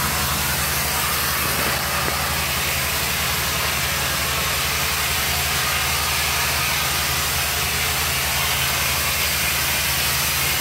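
Steady drone of heavy machinery running: a low, engine-like hum with fast pulsing under a constant airy hiss.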